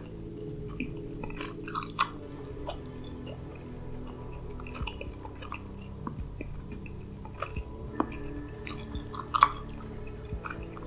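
Close-miked gum chewing: irregular wet mouth clicks and smacks, sharpest about two seconds in and again near the end, over a soft, steady musical drone.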